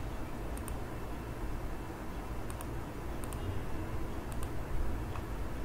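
A few faint computer mouse clicks, spaced irregularly, over a steady low background hum.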